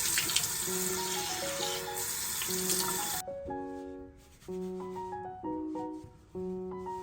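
Water running, a steady hiss that cuts off abruptly about three seconds in, over background music.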